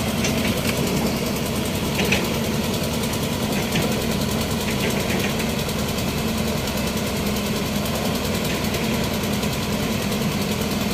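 Crane engine running steadily at a constant speed, a continuous even hum, with a few faint clicks about two seconds in.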